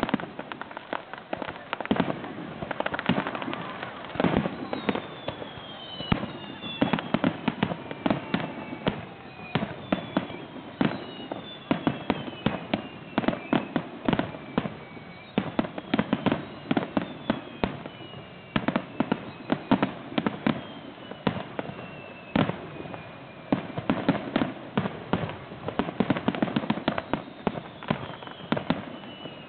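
Fireworks display: a dense run of bangs and crackling reports, with several high whistles falling in pitch as shells rise and burst.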